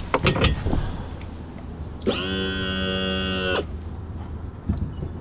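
A few sharp clicks of a tie-down strap's metal buckle being handled, then a loud, steady buzzing hum of one unchanging pitch that starts and stops abruptly, lasting about a second and a half.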